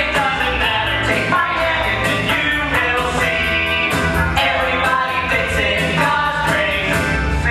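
Pop-rock musical-theatre number: singing over a band with a steady drum beat.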